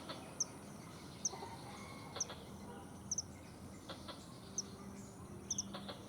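Forest squirrel (tupai) giving a repeated short, high chip call, about once a second, with two of the calls doubled.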